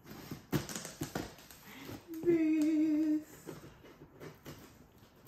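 A woman hums one wavering note for about a second, between knocks and rustles of a cardboard box being handled and scissors being brought to it.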